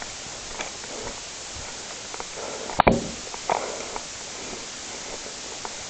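A single sharp crack about three seconds in, followed about half a second later by a softer knock, over a steady background hiss.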